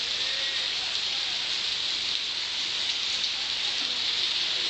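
Heavy rain pouring onto wet paving and a flooded street, a constant hiss.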